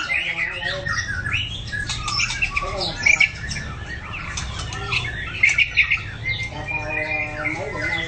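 White-rumped shama singing a long, varied song of whistles, glides, chirps and harsh notes, with a few sharp clicking notes about three seconds in and again around five and a half seconds.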